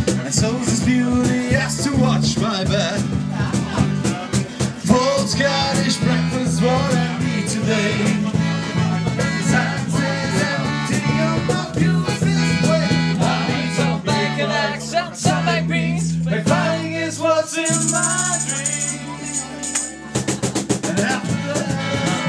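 Live folk-rock band playing: strummed acoustic guitar, accordion and bass guitar in a driving rhythm. For a few seconds about two-thirds of the way through, the strumming drops out and held chords carry on, then the full rhythm comes back near the end.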